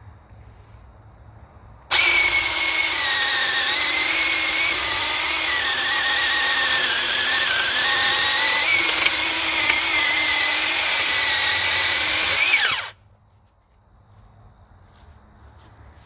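A 21-volt cordless mini chainsaw with a 6-inch bar cutting through a thick log: a high electric-motor whine with chain noise starts about two seconds in. Its pitch wavers and dips as the chain bites the wood, rises briefly near the end as it breaks through, then stops abruptly after about eleven seconds.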